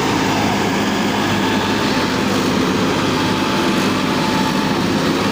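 Force Sanman 5000 tractor's diesel engine running hard and steady under heavy load, straining to pull an overloaded soil trolley through soft dirt so that its front end rears up.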